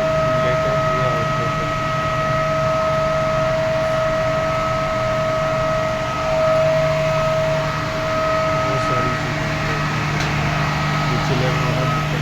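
Steady machine hum with a continuous high-pitched whine over it.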